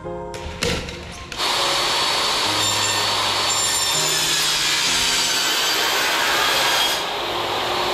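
Electric power saw running and cutting through corrugated plastic drainage pipe, starting about a second and a half in, with a steady high whine over the cutting noise, which eases off near the end. Background music plays underneath.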